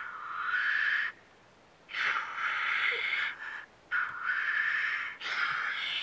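Black grouse cocks giving their hissing 'sneeze' display calls at the lek: four hisses in quick succession, each about a second long. A short low bubbling note comes about three seconds in.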